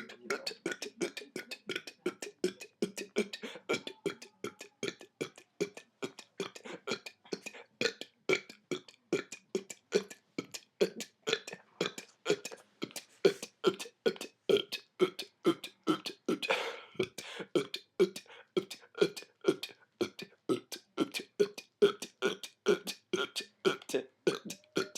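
A man burping in a rapid, continuous string of short burps at about two a second, one slightly longer burp about two-thirds of the way through.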